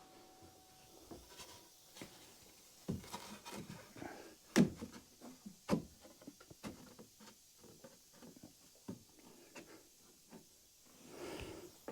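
Wooden boards being handled and fitted: scattered knocks and rubbing of wood, with two sharper knocks about four and a half and nearly six seconds in.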